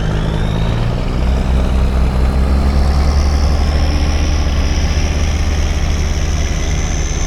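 Diesel engine of an old International Eagle semi truck running on the road: a steady low drone that deepens and grows stronger about a second in, with a high thin whine slowly rising above it.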